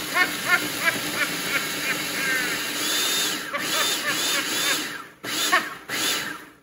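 Countertop food processor running, grinding Flamin' Hot Cheetos into crumbs. It stops for a moment about five seconds in, runs again briefly, and cuts off at the end. Short squeaky chirps sound over the motor through much of it.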